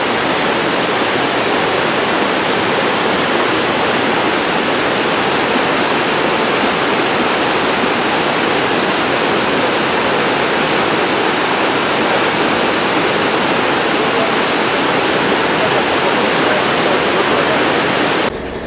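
Rushing water, a loud, steady, even rush of falling or fast-flowing water that cuts off abruptly near the end.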